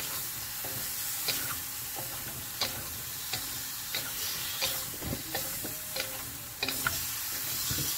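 Chicken, squid, shrimp and carrots sizzling in a hot wok while two wooden spatulas stir and toss them, with irregular clacks and scrapes of the spatulas against the wok.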